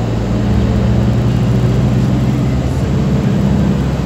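Van engine and road noise heard from inside the cabin while cruising along a highway: a steady low hum under a rush of tyre and wind noise.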